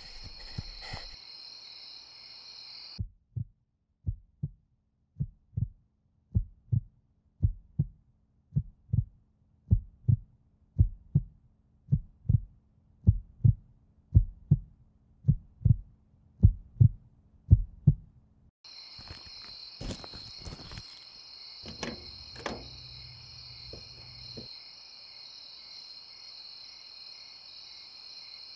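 Night cricket chorus that cuts out after about three seconds, leaving a heartbeat sound effect alone: paired low thumps at about one beat a second, growing louder for some fifteen seconds. The crickets then come back suddenly, with a few clicks and a brief low hum.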